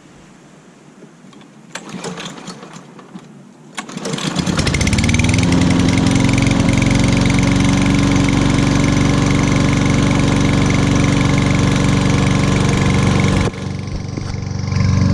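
Lawn-Boy push mower engine being pull-started: a couple of rough cord pulls, then it catches about four seconds in, speeds up and settles into loud, steady running. It starts once its choke has been pushed closed by hand, because the smart choke was left open.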